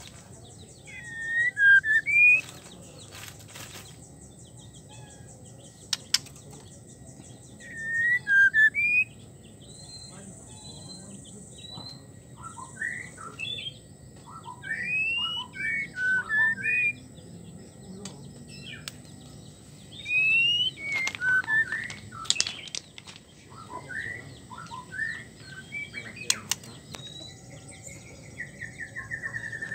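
White-rumped shama (murai batu) giving short whistled call notes that sweep up and down, in clusters of a few every few seconds, with a quick run of notes near the end. The title presents these as the 'wik wik wik' calls of a female in breeding condition calling to a male. A few sharp clicks fall between the calls.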